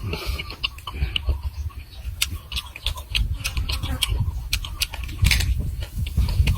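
Close-miked chewing and mouth smacking of a person eating grilled beef: irregular wet clicks and smacks several times a second over dull low thuds of chewing.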